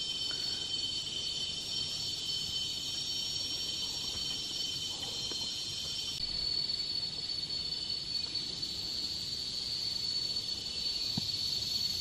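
Rainforest insect chorus: a steady, high-pitched drone of several insects calling at once. The mix of tones shifts about six seconds in.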